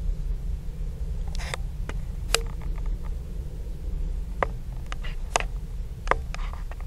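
Handling noise on a handheld camera: a steady low rumble with five or six sharp clicks or taps scattered through, the loudest about six seconds in.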